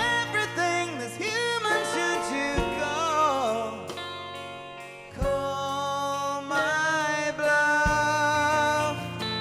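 Live band music in an instrumental passage with guitar: a sliding, bending melody line for the first four seconds, then steady held chords from about five seconds in.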